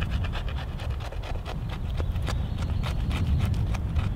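Knife blade scraping a stick of resinous fatwood into fine shavings and dust, in quick repeated strokes of several a second.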